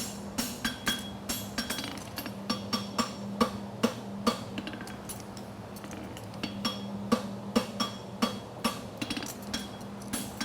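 Hand hammer striking hot steel horseshoe stock on an anvil, drawing it out thinner: ringing blows about two to three a second, lighter for a moment near the middle, over a low steady hum.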